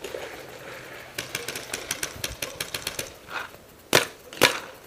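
Paintball markers firing: a quick string of faint pops about five or six a second, then two louder shots about half a second apart near the end.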